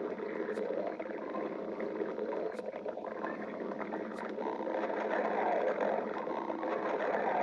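Human stomach growling in a continuous rumble, a little louder from about five seconds in.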